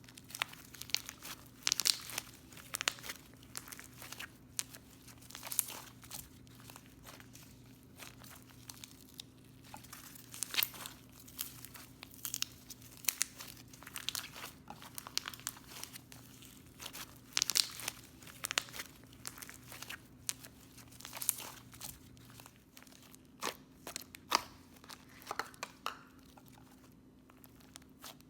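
Foam packing peanuts being broken up and kneaded into slime by hand: irregular crackling and crunching, with sharp crisp pops here and there.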